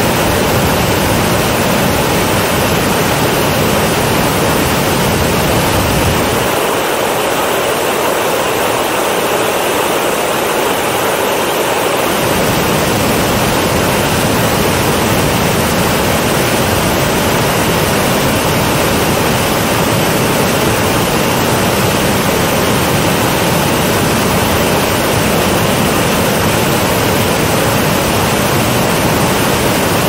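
Salto Ucaima waterfall: a steady, loud rush of heavy water crashing and churning over the falls. About a fifth of the way in, the deep low rumble drops away for several seconds, then comes back.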